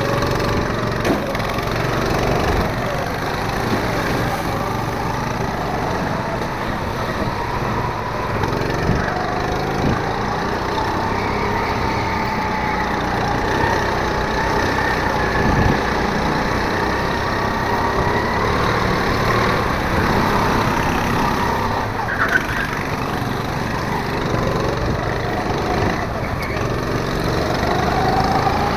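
Go-kart engine running under load, its pitch rising and falling over and over as it speeds up and slows, with a rising whine near the end.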